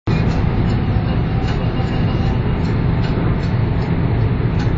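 Steady in-cabin noise of a Honda car at motorway speed: engine, tyre and wind noise blended into a loud, even low rumble.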